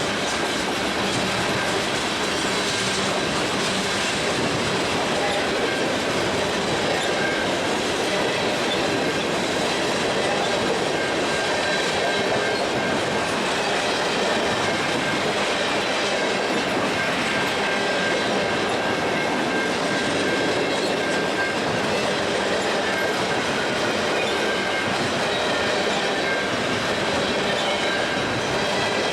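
Freight train rolling by, its wheels clicking over the rail joints, with a faint steady high whine from the wheels.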